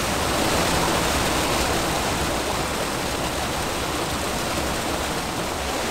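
Steady rushing and splashing of a small spring-fed waterfall pouring from mossy rocks into a pool.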